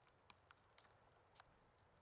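Near silence, with a few faint, short clicks scattered through it.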